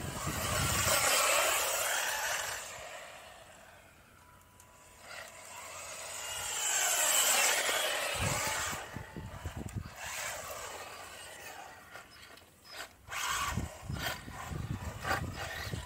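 Xinlehong RC car's electric motor and tyres running past twice, the whine and tyre noise swelling and fading about a second in and again about seven seconds in, followed by scattered knocks and scrapes.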